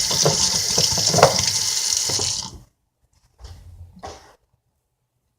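Water running from a sink tap in a steady stream, shut off about two and a half seconds in, followed by two brief soft noises.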